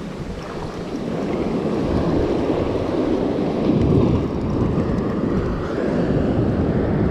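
Wind buffeting the microphone over the wash of sea water. It swells about a second in and is strongest around four seconds.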